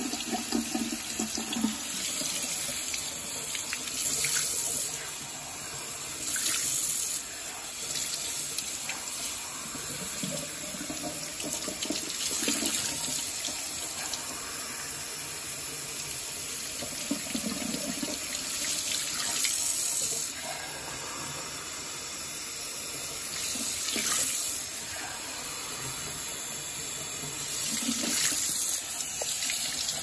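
Cold tap water running steadily into a sink, splashing onto and through a Dyson vacuum filter held under the stream; the splashing swells louder briefly every few seconds.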